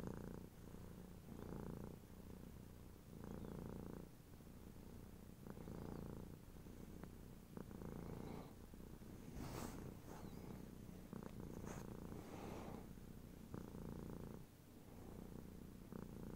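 Tabby kitten purring, faint and close, the purr swelling and fading in a slow rhythm about every two seconds. A few brief sharp sounds come about halfway through.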